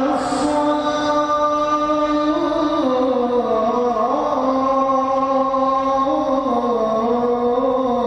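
A man's voice chanting one long melodic line, holding drawn-out notes that step slowly up and down in pitch without a break.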